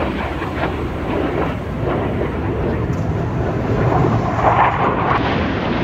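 Jet noise from a Blue Angels F/A-18 Super Hornet's twin turbofan engines as it flies past: a steady, crackling rumble that grows louder about four seconds in.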